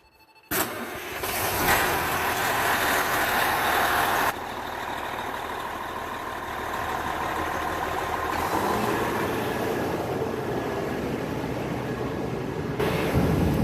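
KME ladder truck's retuned air horns sound in one loud blast, starting abruptly about half a second in and cutting back after about four seconds. The truck's engine keeps running, and the sound grows louder again near the end.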